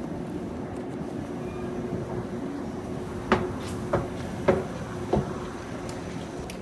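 Steady background hum with four sharp knocks, a little over half a second apart, in the middle.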